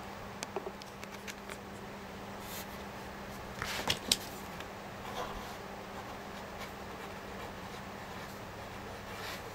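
Small handling sounds of a black felt-tip marker on paper: light taps and scratches, with a cluster of sharper clicks about four seconds in. A steady low hum runs underneath.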